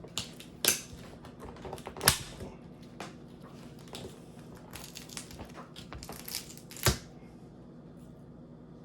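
Small clicks and taps from hand tools and small parts being handled during laptop repair work, with two louder sharp knocks about two seconds in and just before seven seconds. Near the end the handling stops and only a faint steady hum remains.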